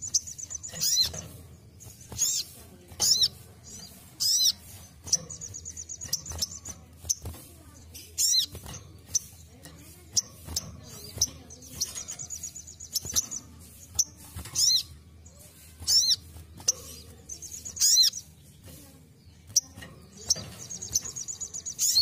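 Sunbird (sogon) singing: sharp, high falling calls repeated every second or two, with short rapid trills between them.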